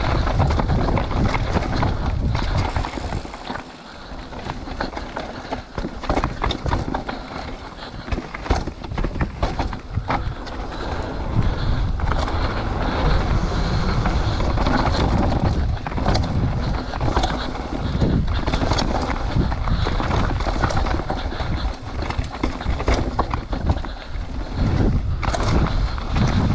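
Mountain bike riding fast down a dirt downhill trail: steady rushing wind on the microphone and tyre noise, broken by many short clattering knocks from the bike over bumps. The noise drops briefly about four seconds in, then picks up again.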